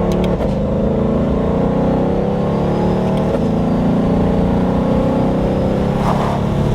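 Twin-turbo 2021 Shelby GT500 V8 on its stock active catback exhaust, pulling under steady acceleration with its pitch climbing, dropping sharply at an upshift twice, then climbing again. The exhaust note sounds a little muffled and quiet, since the turbos act like mufflers.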